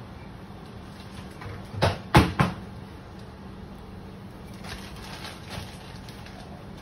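Three sharp knocks in quick succession about two seconds in, over a steady low hum, with a few fainter ticks around five seconds.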